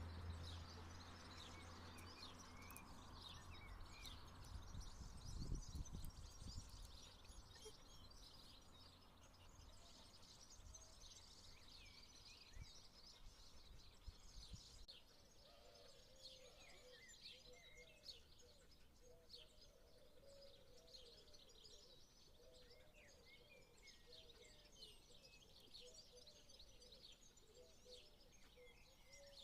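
Faint chorus of many small birds chirping and twittering, with a lower warbling song joining about halfway through. A brief low rumble about five seconds in.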